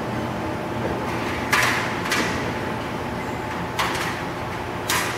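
An 11-station roll former jogged slowly, forming aluminium hurricane panels: a steady machine hum, with three brief scraping rushes about one and a half, four and five seconds in as the formed aluminium panel slides along the machine.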